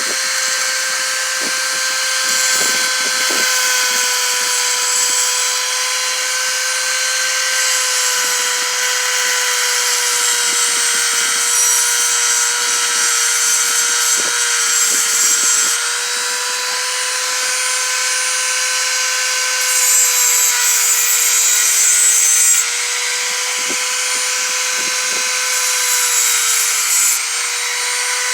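Motor-driven grinding wheel running steadily while a homebrew lock pick is ground on it, a high grinding hiss swelling and easing as the metal is pressed to the wheel and eased off.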